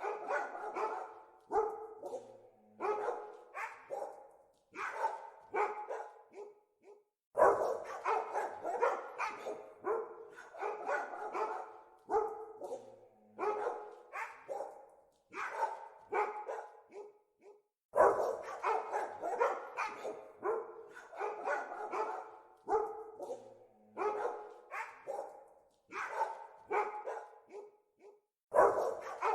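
Dogs barking in rapid, repeated volleys of several barks a second, with short gaps between bouts. A loud fresh bout breaks out about seven seconds in, again around eighteen seconds, and once more near the end.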